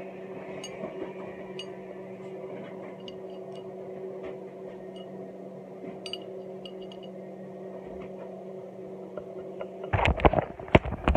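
A steady low hum with a few light clicks and taps from hands handling a plastic toy and its wrappings. About ten seconds in come loud bumps and rubbing as the phone is moved.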